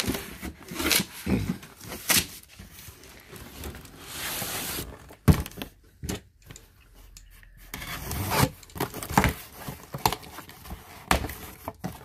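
Cardboard cartons being handled: a white corrugated box scraping and rubbing as it is pulled out of a larger carton, with scattered knocks, and then its taped top slit and its flaps pulled open.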